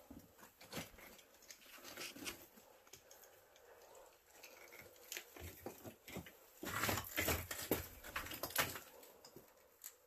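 Fabric of a hoodie scraping and rustling against rock, with gloved hands and feet scuffing and knocking on stone while climbing through a tight rock crevice; a denser, louder run of scrapes comes near the end.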